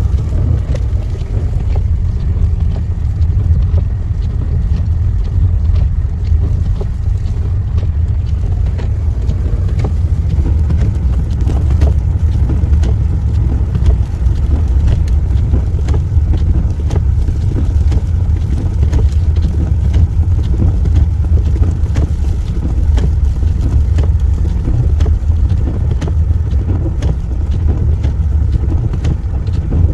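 A car driving slowly on a snow-covered road: a steady low rumble of engine and tyres that holds even throughout.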